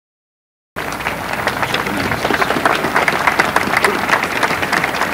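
Large outdoor crowd applauding, a dense patter of many hands clapping that starts abruptly just under a second in after silence.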